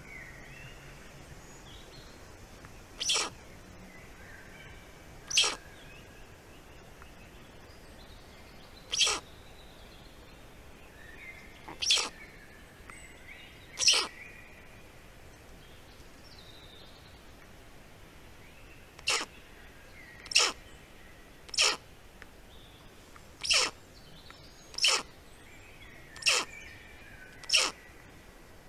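Short, sharp sneeze-like hisses from a black stork nest, about a dozen, spaced one to five seconds apart, with faint songbird chirping in the forest behind.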